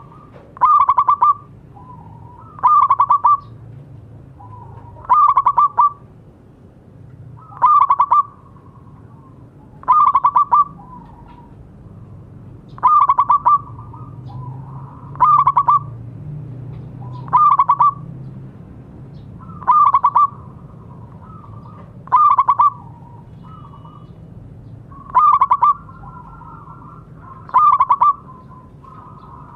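Zebra dove (perkutut) singing its cooing song: a fast run of staccato notes repeated about every two and a half seconds, about a dozen times, with softer cooing notes between the phrases over a low steady hum.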